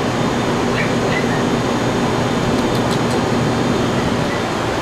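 Loud, steady whooshing background noise with a low hum under it, machine-like, of the kind a fan or air handler makes. A couple of short, faint high chirps come about a second in, and a few faint ticks around three seconds in.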